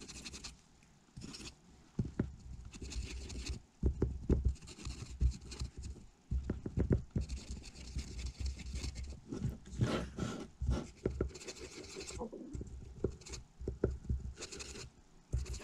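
Irregular scraping, tapping and clicking as flux is worked onto 18650 battery cells and the pack is handled.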